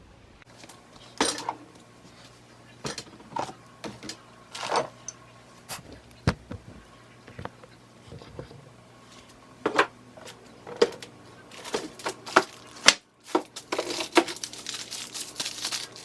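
Irregular clicks, knocks and light clatter of bottles, containers and shelves being handled and set down while a refrigerator is emptied and cleaned, growing busier near the end.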